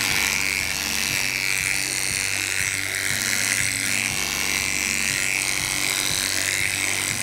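Oster 3000i cordless dog clipper with a wide-tooth snap-on comb running steadily, buzzing as it clips down through a poodle's chest coat.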